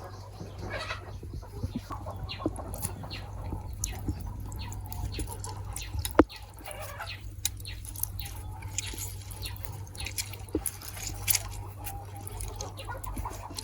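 Chickens clucking against a steady low hum, with many light clicks and taps throughout and one sharper knock about six seconds in.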